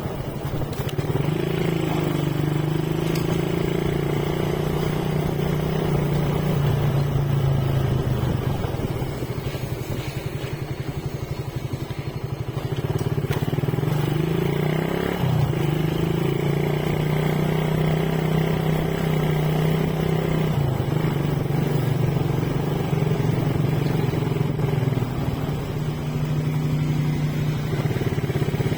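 Motorcycle engine running while riding, its note rising and falling a few times with the throttle, with a sharp dip and recovery about fifteen seconds in.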